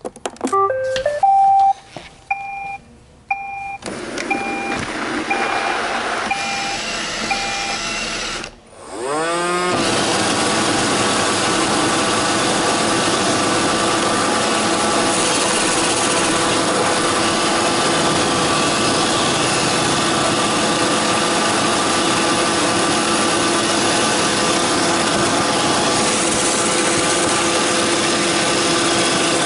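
Roomba 531 robot vacuum starting up: a short rising electronic tune and a string of short beeps, then its brush and vacuum motors spin up with a rising whine a little past the middle and settle into a steady running drone.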